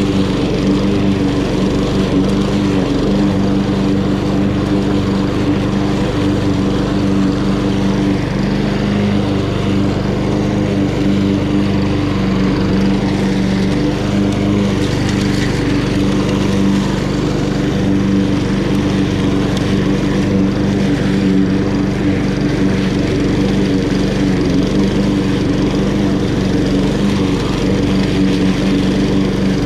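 Honda GCV170 single-cylinder four-stroke engine on a walk-behind lawn mower, running steadily at constant speed while mowing.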